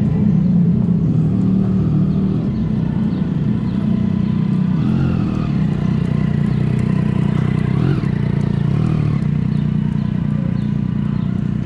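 Motorcycle engine running steadily under way, the supercharged inline-four of a Kawasaki H2, holding an even pitch throughout.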